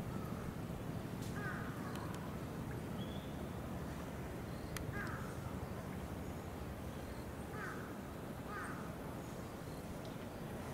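Crows cawing, several short calls spaced a few seconds apart over a steady low background rumble.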